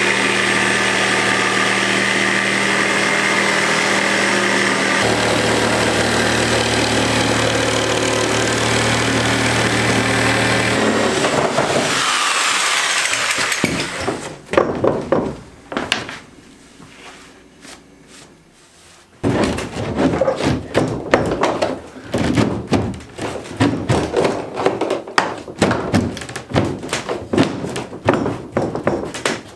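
A power saw runs steadily for about twelve seconds, its pitch shifting about five seconds in, then winds down. Scattered knocks and clunks follow, thickening into rapid clattering over the last ten seconds as plywood panels and a cooler are handled on the boat's deck.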